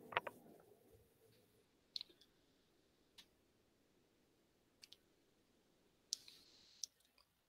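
Near silence broken by about half a dozen scattered computer mouse clicks.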